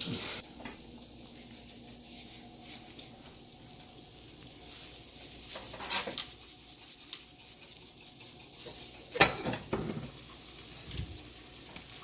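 Battered chicken pieces frying in hot oil in a skillet, a steady sizzle and crackle, with a sharp knock about six seconds in and a louder one about nine seconds in.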